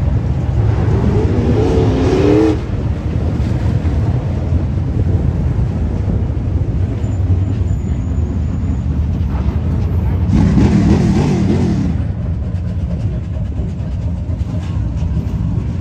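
Dirt-track stock car engines idling with a steady low rumble. Raised voices cut in over it twice, about a second in and again about ten seconds in.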